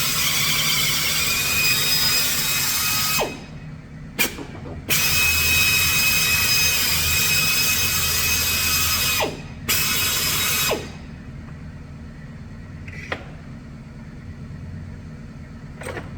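Power drill running under load as it bores a hole, with a high whine: it runs about three seconds, stops, gives a short blip, runs again for about four seconds, then one more short burst before stopping, leaving a low hum.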